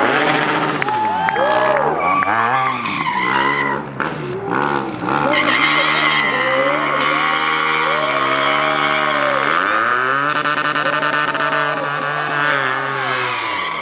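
Stunt motorcycle engine revving hard, rising and falling several times and then held high for a few seconds at a time, while the rear tyre spins and squeals in a smoking burnout.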